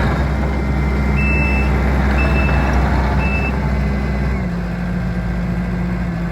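Kubota SVL75-2 track loader's diesel engine running, with its reversing alarm beeping three times, about once a second. A little after four seconds in, the engine note drops a step lower.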